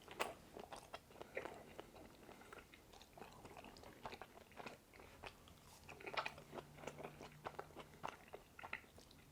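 Close-miked chewing of lamb and noodles: faint, irregular wet mouth clicks and smacks.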